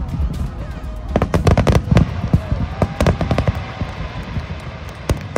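Aerial firework shells bursting in quick bangs and crackle, thickest in the first half and thinning out near the end.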